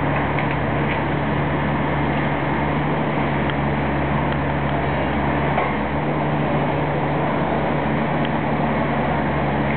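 Tracked excavator's diesel engine running steadily with a low hum while its hydraulic arm swings a demolition grab, with a few faint clicks.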